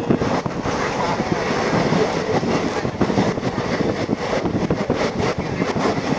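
A passenger train running, heard from inside a coach at its barred window: a steady rumble with a continuous clatter of wheels and rattling coach fittings on the track.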